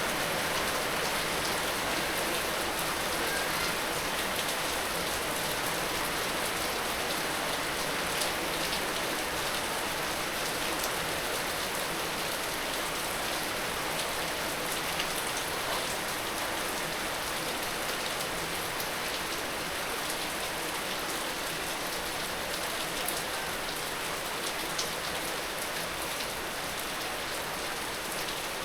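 Heavy rain falling steadily, a dense even hiss with scattered individual drops ticking on a surface.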